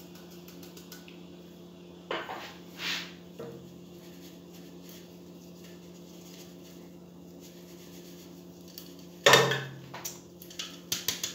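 Fine metal flour sieve being shaken and knocked over a bowl while sifting flour, custard powder and milk powder: light metallic rattles and soft knocks, one loud knock about nine seconds in, then a run of quick taps near the end. A faint steady hum sits underneath.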